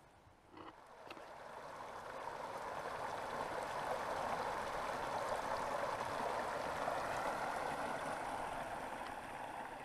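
Small creek water spilling over a low ledge into a pool, a steady rushing and gurgling flow that swells over the first few seconds and eases slightly near the end.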